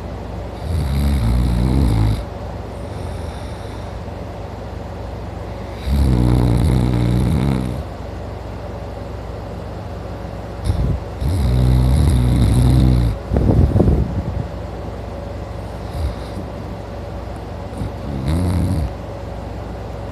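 A sleeping man snoring loudly, with long snores a second or two each, coming about every five seconds.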